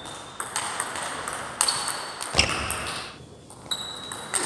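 Plastic 40+ table tennis ball clicking off the rackets and the table during a rally: a string of sharp, irregular hits, the loudest about two and a half seconds in.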